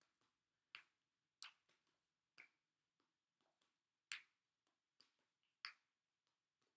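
Juggling balls smacking into the hands as they are caught in a three-ball multiplex pattern. There are six sharp pats at uneven intervals, with quiet between them.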